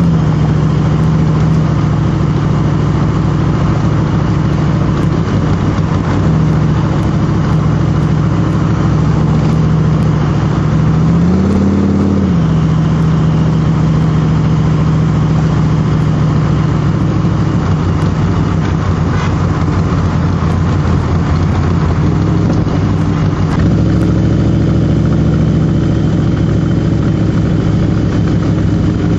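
Cobra replica's V8 engine running at a steady cruise, heard from the open cockpit over wind and road noise. About twelve seconds in the revs rise briefly and drop back, and a little before the end the engine note steps to a new pitch.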